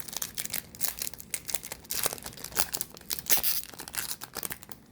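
Foil wrapper of a baseball card pack crinkling and tearing as it is opened, a dense run of irregular sharp crackles.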